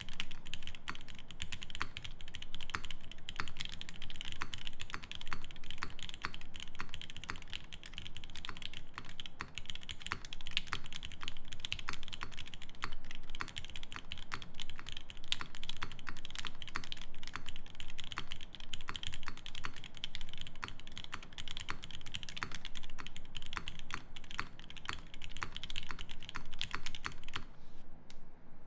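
Fast, continuous typing on a TGR x Singa Unikorn R2.1 mechanical keyboard with a brass plate, lubed Seal switches and GMK keycaps. The keystrokes stop about a second before the end.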